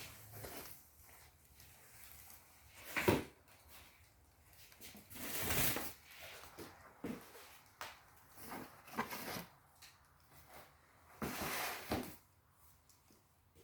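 Intermittent handling noises: rustling and light clicks of objects being moved, with a sharp knock about three seconds in and longer rustles near the middle and near the end.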